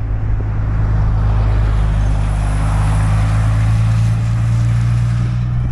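Road traffic on a highway: tyre and engine noise from passing vehicles swells through the middle and eases off near the end, over a steady low engine hum.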